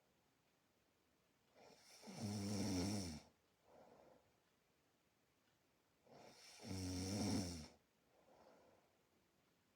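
A person snoring in sleep: two loud snores about four and a half seconds apart, each followed by a softer breath.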